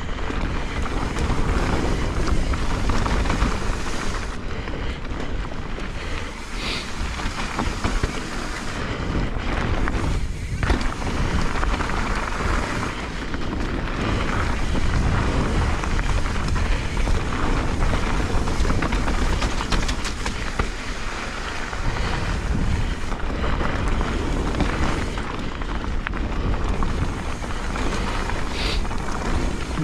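Mountain bike descending a sloppy, wet trail at speed: tyres rolling and rattling over the muddy ground, with wind rushing over the microphone.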